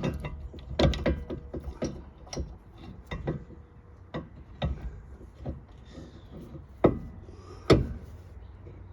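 Irregular metal knocks, clicks and scraping as a rear brake caliper is pushed back into place over its pads and bracket, with the sharpest knocks right at the start and about seven and eight seconds in.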